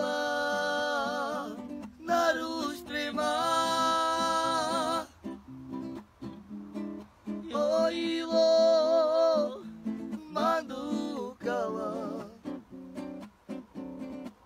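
A Slovak Roma band's song: a voice singing long held phrases with vibrato over guitar accompaniment, pausing briefly between phrases.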